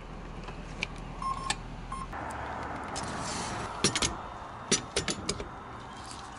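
Gas station fuel pump being worked by hand: two short beeps, then a steady whir comes on about two seconds in as the pump starts. Several sharp clicks and knocks follow as the nozzle is lifted out and handled.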